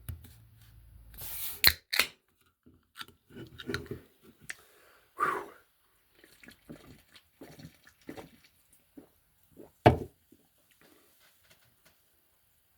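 Fizzy Sprite Cranberry opened with a short hiss and a couple of clicks, then drunk in a run of soft gulps and swallows, with one low thump near the end.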